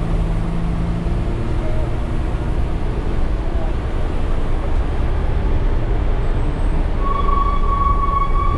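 Bus engine and road noise inside the driver's cab as the bus runs downhill through bends, a steady low drone. About seven seconds in, a long, steady high-pitched tone starts and holds.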